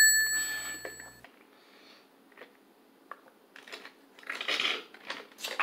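A music sting ends with a ringing chord that fades out in the first second. Then a man gulps and swallows a drink from a cup, in soft noisy swallows with small clicks that grow louder near the end.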